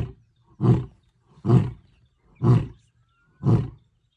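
Lion roaring: the closing series of deep grunts, five of them, each a little further apart than the last.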